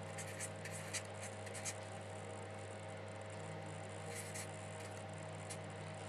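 Felt-tip marker writing on paper: faint short scratchy strokes in clusters, mostly in the first two seconds and again about four seconds in, over a steady low electrical hum.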